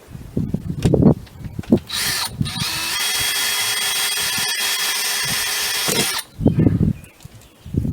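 Power drill running steadily for about four seconds, stopping briefly just after it starts, with knocks and handling clatter before and after.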